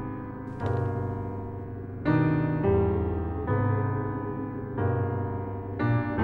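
Film score: a piano playing slow, sustained chords, a new chord struck every second or so, the loudest about two seconds in.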